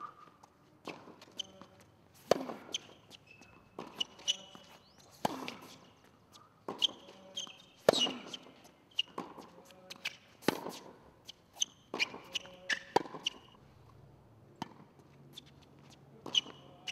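Tennis rally on a hard court: sharp pops of the ball struck by rackets and bouncing on the court, irregularly, about every second or so, with short high squeaks between the hits.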